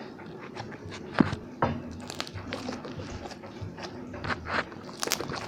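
Slime being squeezed and played with by hand, giving irregular sticky clicks and pops, the sharpest about a second in.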